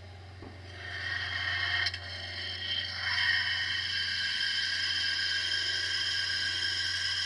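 Metal wheels of a large-scale garden railway freight train rolling along the track as the cars pass, a steady metallic rolling noise with a ringing, whining edge that builds about a second in. A low steady hum sits underneath.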